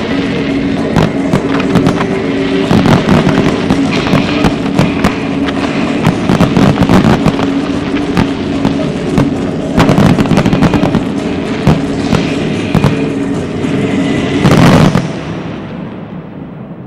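Fireworks display going off in a dense barrage of rapid bangs and crackles, with music playing under it. A single loudest burst comes near the end, after which the sound dies away.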